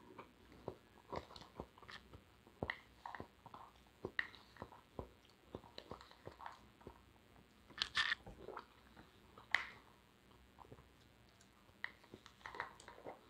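Quiet, irregular chewing and mouth clicks of someone eating soft cubes of fruit salad, papaya and watermelon, a little louder around eight seconds in.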